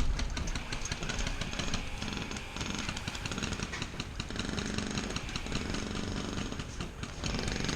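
Airsoft guns firing in fast rattling bursts of shots.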